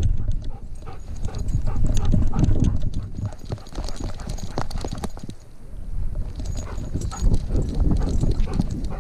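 A dog on the move, heard from a camera strapped to its harness: its paws striking the ground and the mount jolting with each stride make an irregular patter of thuds and knocks.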